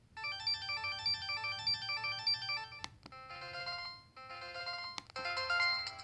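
LG TM125 phone ringtones playing: a synthesized multi-note ringtone melody starts just after the opening. The tune switches abruptly twice, each time at a sharp click, as one ringtone gives way to the next.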